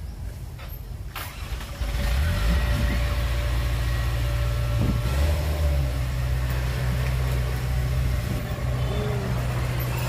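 Heavy diesel engine of an earthmoving machine coming up to a loud, steady run about two seconds in, its low note shifting slightly partway through.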